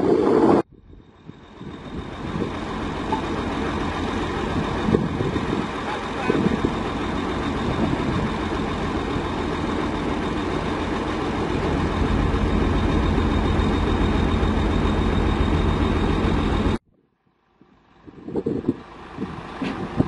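Heavy diesel engine running steadily with a deep low rumble, a little stronger in the second half. It cuts in after a short break near the start and cuts off abruptly near the end, followed by a few scattered noises.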